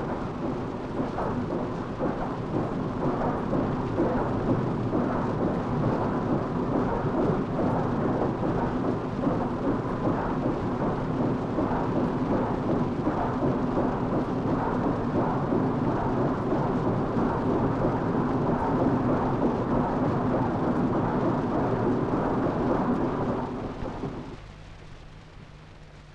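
A dense, steady rushing noise, like rain or a storm, with no clear pitch or rhythm; it dies away about 24 seconds in.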